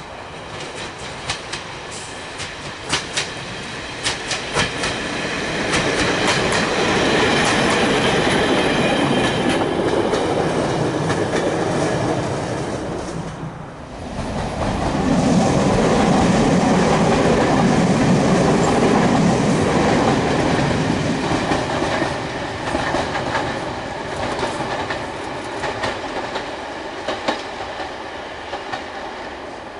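Heritage first-generation diesel multiple unit running on the line: its diesel engines drone and its wheels click sharply over the rail joints, the noise building loud as it draws close. It breaks off suddenly about halfway through, swells loud again and then eases to a quieter run with occasional wheel clicks.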